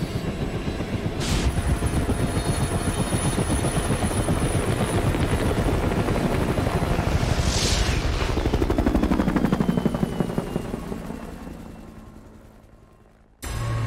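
Helicopter's main rotor chopping steadily as it lifts off and flies away, fading out over the last few seconds before it cuts off.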